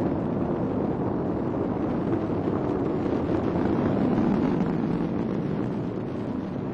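Falcon 9 rocket's nine first-stage Merlin engines heard from the ground during ascent, a steady low rumble that swells slightly about four seconds in.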